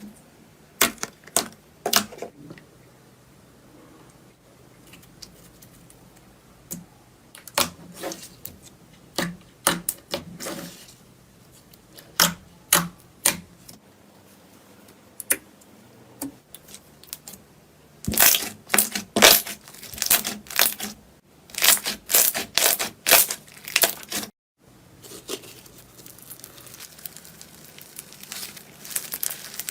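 Slime being squeezed and pressed by hand, making sharp pops and crackles. They come scattered at first and grow dense about two-thirds of the way in. After a brief break they turn into a steadier, softer crackling.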